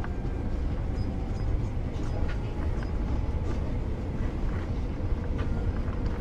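Steady engine and road rumble of a highland tour bus driving along a mountain road, heard from inside the cabin.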